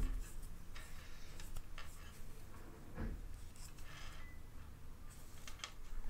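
Faint irregular clicks and soft rustles of a crochet hook working lace yarn, stitch after stitch.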